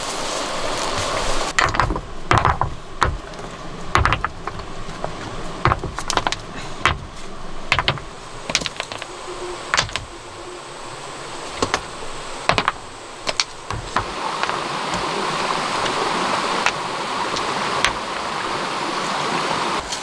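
Ground being cleared by hand: irregular clicks and knocks of loose stones and plants being pulled and moved, over a steady hiss of forest background. The knocks thin out in the last few seconds.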